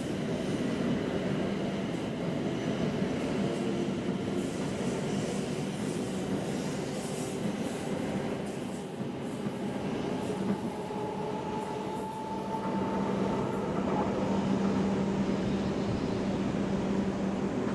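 E7-series Shinkansen train running along the track: a steady rumble of wheels and running gear with a low hum, and a faint higher whine about two-thirds through. It grows a little louder in the last few seconds.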